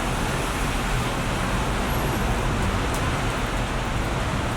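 Steady background noise: an even rush with no distinct events in it.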